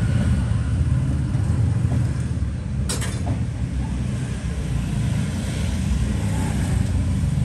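Steady low rumble of road traffic, with one sharp click about three seconds in.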